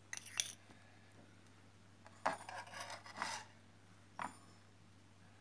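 Kitchen utensils against a container while honey and lemon juice go into the onion-garlic brew: a couple of light clicks at the start, a scraping rub for about a second in the middle, and a single click near the end.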